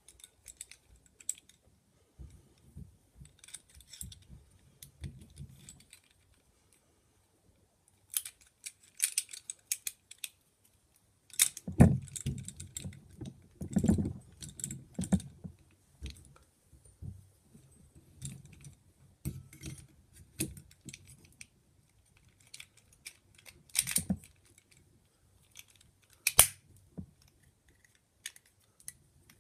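Brass parts of a Schlage knob lock clicking and clinking as they are handled and fitted together by hand: scattered small metal clicks and taps, busiest and loudest about halfway through, with a couple of single sharp clicks later on.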